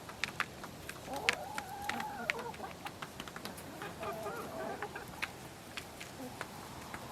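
Chickens clucking, with two drawn-out calls about a second in and about four seconds in, amid sharp irregular ticks of beaks pecking at food.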